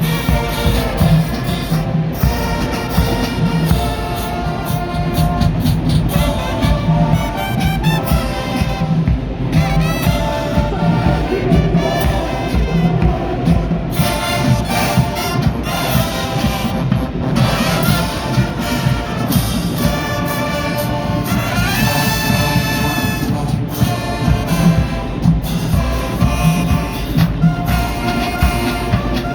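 Marching band playing loudly: brass horns carrying the tune over a steady drum beat.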